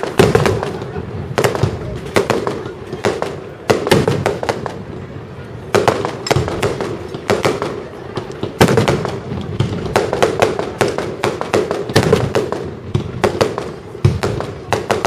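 Fireworks display: aerial shells bursting one after another with sharp bangs every second or so, the loudest near the start and about nine seconds in.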